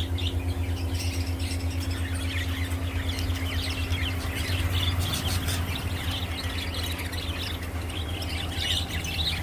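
Many small birds chirping and squawking together in dense overlapping calls, over a steady low hum.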